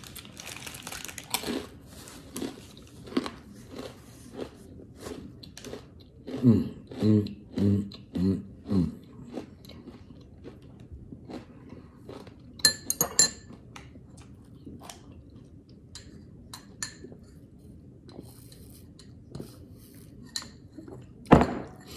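Close-up crunching and chewing of a crisp fortune cookie: a dense string of small crackling crunches that thins out over about ten seconds, with a few short hums from the eater partway through.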